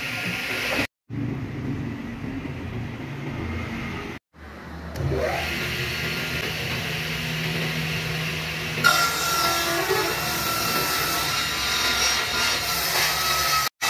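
Homemade table saw, a circular blade set through a wooden bench and driven by an electric motor underneath, running steadily while it rips a thick solid-wood plank lengthwise. A higher whine comes in about nine seconds in. The sound drops out abruptly three times for a moment.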